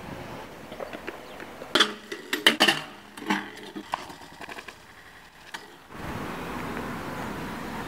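A freestyle scooter and its rider crashing at a stair set: a cluster of sharp knocks and impacts about two seconds in, over a second or so. From about six seconds a steady outdoor background noise takes over.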